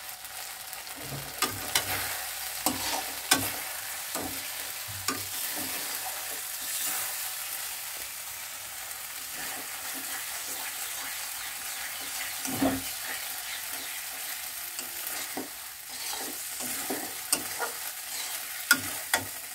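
Spice paste sizzling in oil in a metal kadai as a metal spatula stirs and scrapes through it, with scattered clicks and knocks of the spatula against the pan. The masala is being fried down until the oil separates from it.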